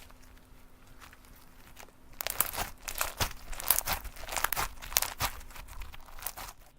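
Slime being worked by hand, giving crackling, clicking pops. It is faint for the first two seconds, then turns into a dense run of sharp crackles until just before the end.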